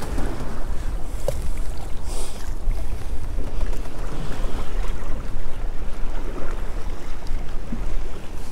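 Wind rumbling steadily on the microphone, with the sea washing against the hull of a small drifting boat.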